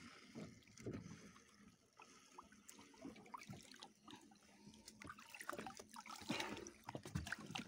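Faint water sloshing and trickling at the boat's side as a large fish is hand-lined to the surface, with louder splashing in the last couple of seconds as the fish is grabbed at the waterline.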